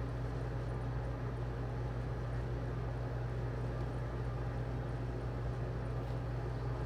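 Steady low hum with a faint even hiss, unchanging throughout: room background noise.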